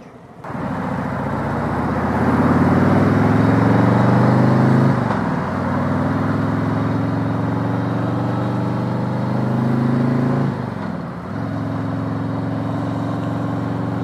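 Harley-Davidson Electra Glide Standard's V-twin engine pulling the bike along under way, with wind rush, its note dipping and picking up again at upshifts about five seconds in and near eleven seconds.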